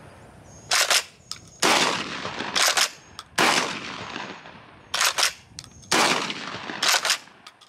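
UTAS UTS-15 bullpup 12-gauge pump-action shotgun firing a string of about seven shots, roughly one a second, each with a short echoing tail.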